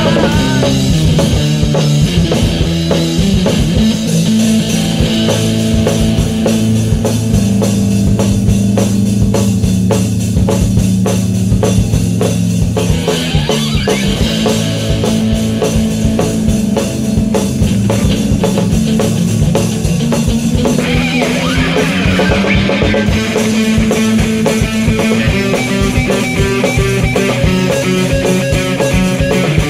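Instrumental break of a Chilean rock-and-roll song: guitar, bass and drum kit playing a steady beat with no vocals.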